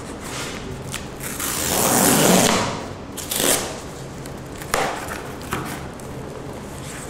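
Corrugated cardboard mailer box being opened by hand: its tear strip ripped off in one long tear about two seconds in, followed by a shorter rip and then cardboard flaps scraping and knocking as they are pulled open.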